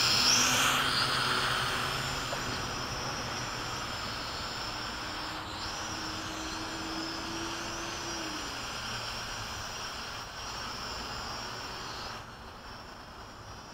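Hubsan H502E quadcopter's motors and propellers whining, loudest as it passes close at the start, then fading steadily as it flies away, with a further drop near the end.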